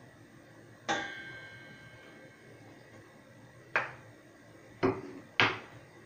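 Kitchenware clinking as hot syrup is ladled from a steel pot into glass jars: four sharp knocks, the first ringing on for about a second, the last three close together near the end.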